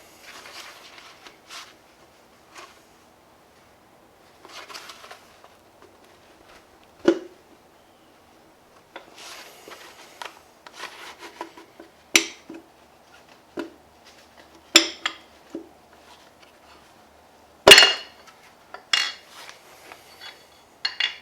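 Metal parts and tools clinking, knocking and scraping as a connecting rod and piston are worked out of a Gen 4 Hemi V8 block: scattered sharp clanks with rubbing and sliding in between, the loudest clank about three-quarters of the way through.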